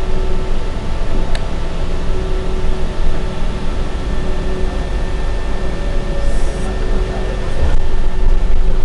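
Inside a New Flyer Invero diesel city bus under way: a steady engine and road rumble with faint steady whining tones. There is a single sharp click about a second in, and the rumble grows louder near the end.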